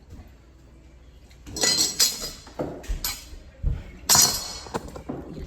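Dishes clinking and clattering against one another while being washed: a run of sharp knocks and ringing clinks starting about a second and a half in, the loudest about four seconds in.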